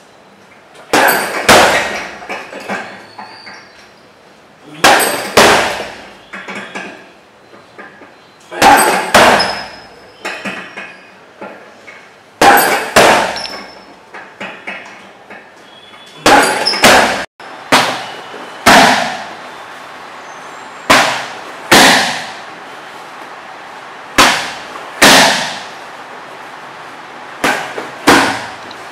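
Boxing-gloved jabs and shin roundhouse kicks striking a heavy bag and then Thai pads: sharp smacks, mostly in pairs about half a second apart, a pair every four seconds or so. After a break about two-thirds of the way through, the strikes land on pads over a steady hiss.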